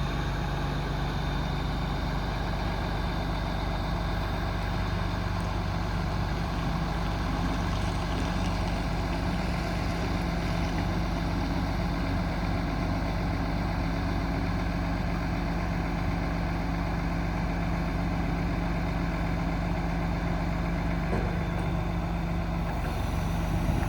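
Cummins 8.3 ISC six-cylinder diesel of a 2007 Peterbilt 335 running steadily at idle while it powers the hydraulic crane.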